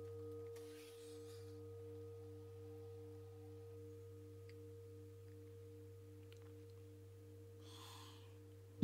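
Singing bowl ringing on and slowly fading, several steady tones, one of them pulsing about three times a second. A soft hiss shortly before the end.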